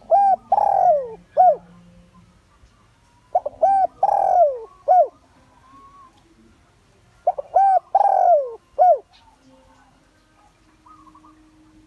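Spotted dove (cu gáy) calling as a lure bird, three phrases of several coo notes a few seconds apart, each with one long note falling in pitch.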